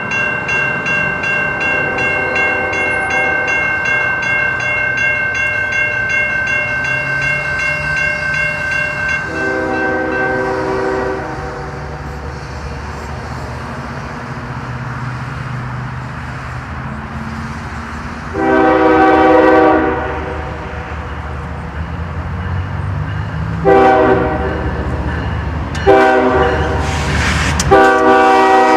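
Diesel freight locomotive horn blowing a series of blasts (two long, two short, then another long) over the rumble of the approaching train. A steady high ringing tone fills the first several seconds and then fades out.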